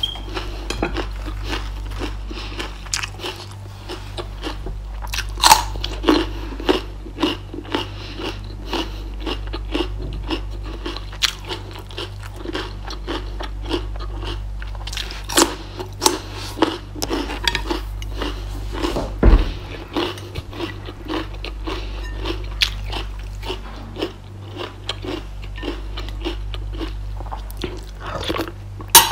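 A person crunching and chewing raw vegetables close to the microphone, carrot sticks and crisp romaine lettuce, with many sharp, irregular bites and chews throughout. A steady low hum lies underneath.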